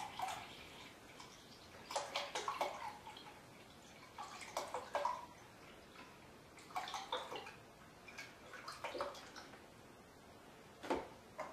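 Hemp milk glugging out of a carton into a measuring jug, in a series of short gurgling pours about two seconds apart.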